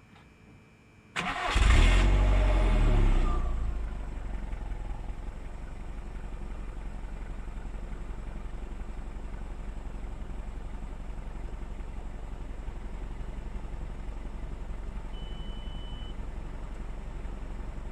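A 2002 VW Golf 4's 1.6 16-valve four-cylinder petrol engine is cranked on the starter and catches about a second in. It flares up briefly, then settles into a steady idle through the stock exhaust, whose note the owner finds weird. A short high tone sounds near the end.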